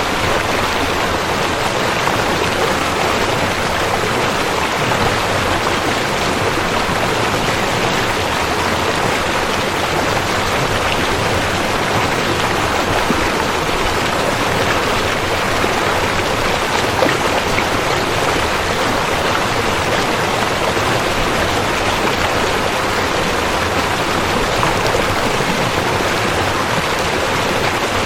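River water rushing and flowing steadily, an even continuous wash of moving water.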